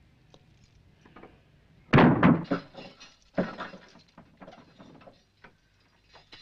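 Heavy wooden house door and its ironwork: two loud thuds, about two seconds in and again a second and a half later, followed by lighter clicks and rattles of a key ring at the lock.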